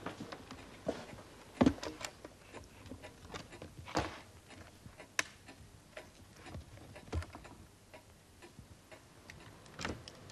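Scattered small clicks and knocks as a violin case is handled on a table and opened, the sharpest about a second and a half in.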